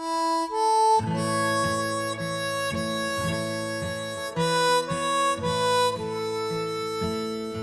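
Background music: a harmonica playing long held notes, joined about a second in by a guitar accompaniment strummed on a steady beat about twice a second.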